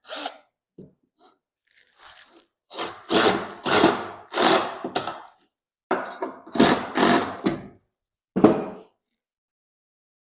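Power drill driving stainless steel screws into wood in a series of short bursts, the trigger pulled and released again and again.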